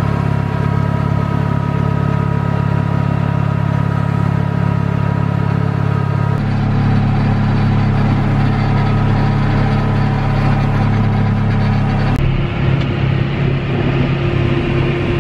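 John Deere tractor's diesel engine running steadily with its PTO snowblower engaged, heard from inside the cab, a low drone with a faint steady whine. The drone's pitch shifts abruptly twice, about six seconds in and again near twelve seconds.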